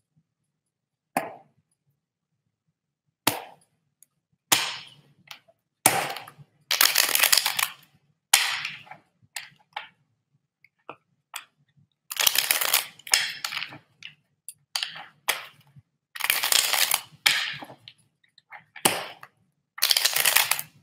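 A man's breathy, stifled laughter: a string of sudden, hissing bursts of breath with short gaps between them, the first two short and sharp.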